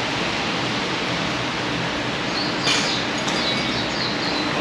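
Steady rushing background noise with a faint low hum. About halfway through comes a short click, with faint high chirping for a second or two.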